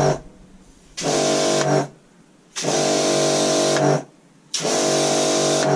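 Karcher K4 electric pressure washer test-fired in short bursts after reassembly: the motor and pump hum up with a hiss of spray each time the trigger is squeezed and stop when it is let go. One burst ends just after the start, then three more follow, the last two longer than the first.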